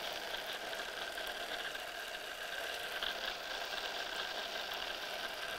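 Electric mini food chopper running steadily with an even motor whir, blitzing a wet curry paste of chillies, shallots, lemongrass and garlic.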